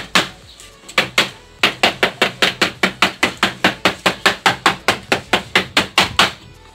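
Hammer tapping on Formica laminate glued to a wooden board: a few scattered taps, then a steady run of about five quick taps a second that stops near the end. The blows are kept light to press the laminate down onto the adhesive without cracking it.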